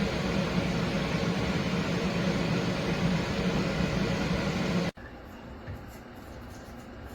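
Electric fan running, a steady rush of air over a low hum, which cuts off abruptly about five seconds in, leaving quiet room sound.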